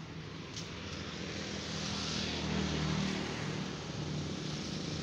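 Ford Everest 2.5-litre diesel engine idling steadily, growing louder over the first few seconds.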